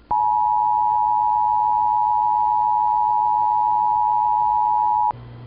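Emergency Alert System two-tone attention signal: two steady tones sounded together, loud and unwavering, held for about five seconds and cutting off sharply near the end.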